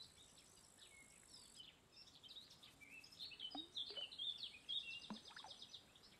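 Small birds chirping and calling over a quiet outdoor background, the calls growing busier about halfway through with quick trilled notes.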